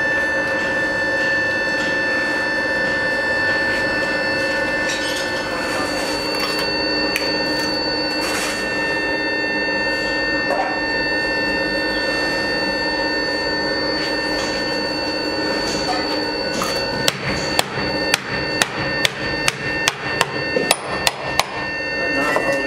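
About a dozen quick, sharp metal taps in a row, two to three a second, beginning about three-quarters of the way in: a moulder rapping the pattern in the sand mould to loosen it before it is drawn. A steady humming drone runs beneath.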